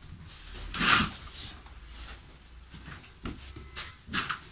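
Heavy, dense curtain being pulled and adjusted on its ceiling rail: a rustling swish of fabric about a second in, then a few shorter swishes and clicks near the end.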